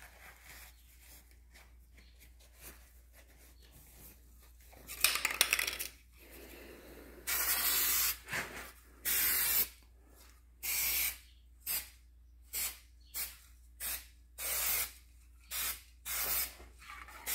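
Aerosol spray can of satin black rust-preventive paint hissing in about a dozen separate bursts, the first ones about a second long and the later ones shorter, starting about five seconds in.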